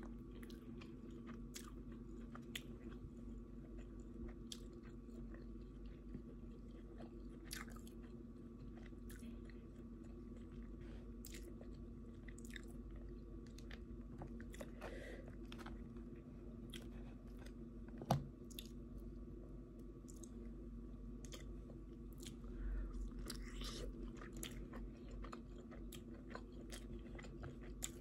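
A person chewing food close to the microphone, with many small wet mouth clicks and smacks over a low steady hum. A single sharp click about eighteen seconds in stands out as the loudest sound.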